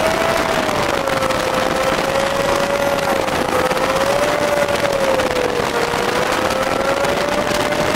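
VW-based Meyers Manx-style dune buggy cruising on the road, its engine running steadily under wind rushing past the open body. A steady hum runs through it and wavers gently up and down in pitch.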